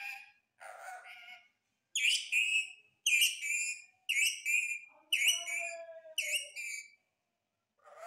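Indian ringneck parakeet mimicking human speech. It says "Amir" near the start, then repeats "Chishti" in a run of about five high, whistly calls, roughly one a second.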